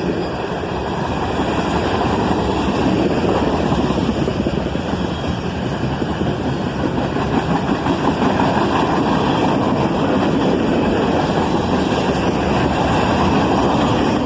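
CSX mixed manifest freight train rolling past at close range: a steady, loud rumble of the train on the rails.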